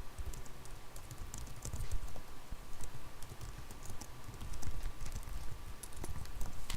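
Typing on a computer keyboard: irregular key clicks, with a faint steady whine underneath.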